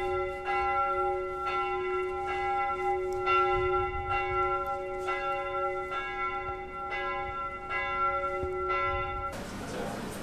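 Church bell tolling, struck again about once a second with a steady ringing hum between strokes, and stopping about nine seconds in.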